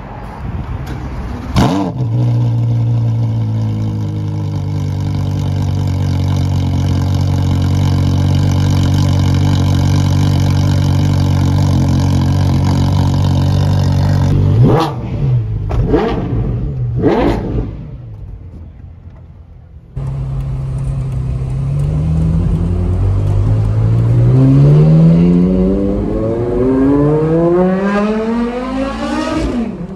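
Porsche Carrera GT's 5.7-litre V10 on straight pipes: a quick rev, then a steady idle, then three sharp revs. After a cut it is heard from the open-roofed cabin pulling away and accelerating through the gears, the pitch climbing and dropping back at each shift.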